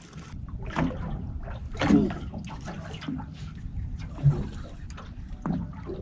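Water slapping and sloshing against the hull of a small boat in irregular bursts, the loudest about two seconds in.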